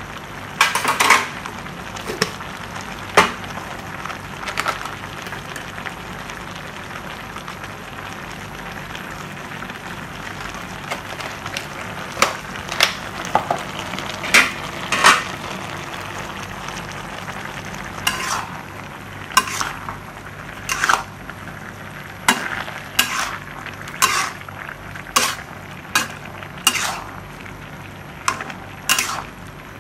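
Pinakbet of vegetables and pork sizzling in a deep pan as it is stirred, with a steady frying hiss and a spoon knocking and scraping against the pan. The knocks come scattered at first and about once a second in the second half.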